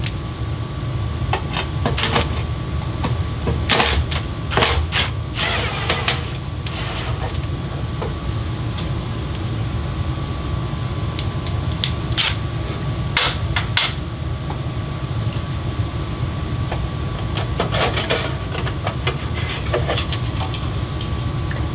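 Sheet-metal wiring cover plate being worked off a bathroom exhaust fan housing: repeated clicks, knocks and clatter of metal, with short squeaky scrapes, over a steady low hum.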